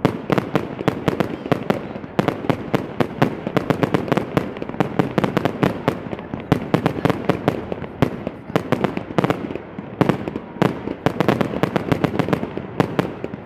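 Aerial fireworks bursting in a dense barrage: many sharp bangs and crackles a second, with no break.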